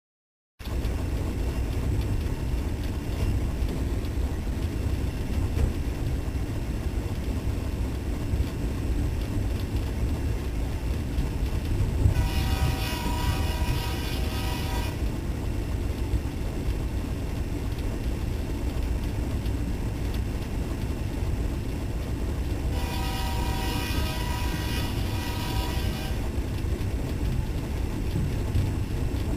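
Diesel locomotive running with a steady low rumble, its horn blowing twice, each blast about three seconds long, the first near the middle and the second about three-quarters of the way through.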